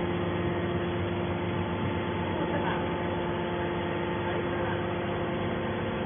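Hydraulic power unit of a triple-action metal scrap baler running with a steady hum.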